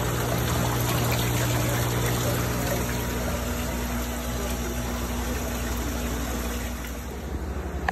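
Water pump running with a steady hum, and aerated water bubbling in a live bait tank; the hum fades after about two and a half seconds, leaving a steady wash of water noise.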